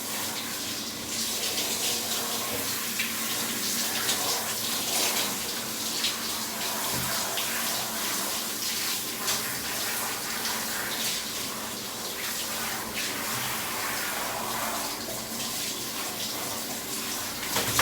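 Water running steadily from a bathroom shower during a dog's bath, a constant rushing spray.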